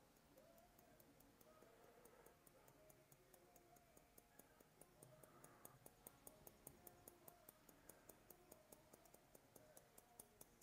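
Hair-cutting scissors snipping through a held section of long hair: a run of small, quick clicks at about four a second that begins about two seconds in, over faint background music.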